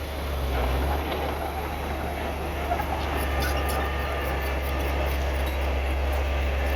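Bulldozer's diesel engine running steadily with a strong low drone, with a run of faint clicks about three seconds in.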